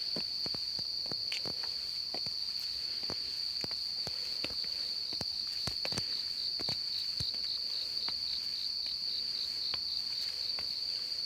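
Insects calling loudly at dusk in one continuous high-pitched trill, with a second insect chirping in quick pulses, about five a second, through the middle. Scattered sharp clicks sound over it.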